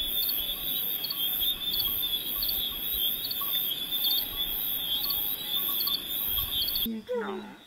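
Crickets chirring in a loud steady chorus, with a high trill that pulses about twice a second. The chorus cuts off suddenly near the end, and a short falling vocal sound follows.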